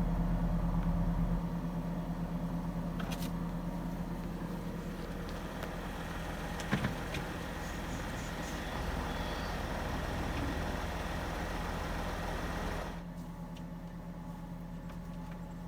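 Vehicle engine running steadily, a low hum that gets quieter about thirteen seconds in. A single brief click about seven seconds in.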